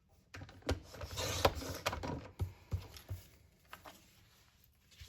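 Paper and cardstock being handled on a tabletop: rustling with a series of light taps and clicks over the first few seconds, as the cut mats are laid in place.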